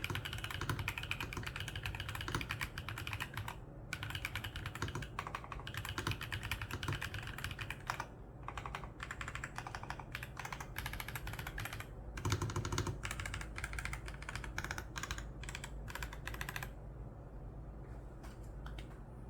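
Typing on a VGN N75 Pro mechanical keyboard with Stream Wave switches: fast runs of key clicks broken by short pauses, with one deeper, heavier keystroke partway through. The typing stops near the end, leaving a few scattered key presses.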